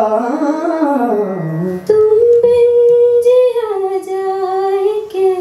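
Solo singing into a handheld microphone: a man draws out a wordless, wavering phrase that slides down in pitch, then about two seconds in it switches abruptly to a woman holding long, steady notes that step down once.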